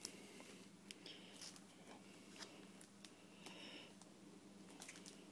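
Faint handling noises: a few soft clicks and brief rustles as a tablet in its clear plastic wrapping is lifted from its box and turned over, over a low steady hum.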